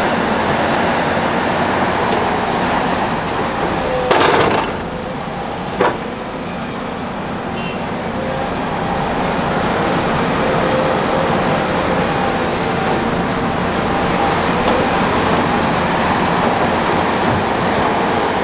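Large hydraulic excavators' diesel engines running steadily as they dig and load dirt into a dump truck. About four seconds in there is a brief loud rush, and a sharp knock comes shortly after.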